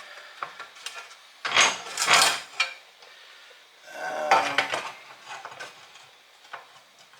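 Metal clanking and scraping of steel tools and a bench vise being handled, in two main bursts about a second and a half in and about four seconds in, with lighter clicks between them.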